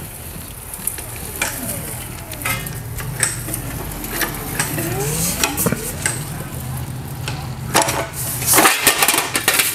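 Thin sheet metal being rolled into a cylinder in a hand-cranked slip roller, the sheet rattling, flexing and scraping against the steel rollers. A burst of louder metallic clanks comes near the end.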